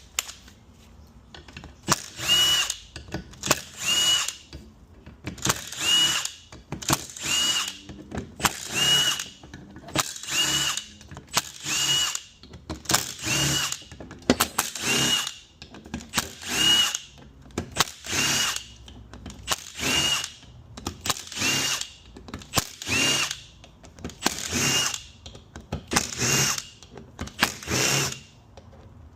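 Cordless drill-driver spinning bolts out of a 6F35 transmission's oil pump body, one bolt after another. It comes in a run of short bursts, roughly one every second and a half to two seconds, each ending in a brief rising whine.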